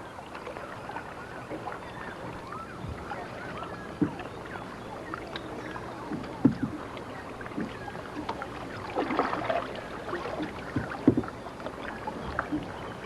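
Paddling a canoe on open water: a steady wash of water with a few sharp knocks of paddles against the hull.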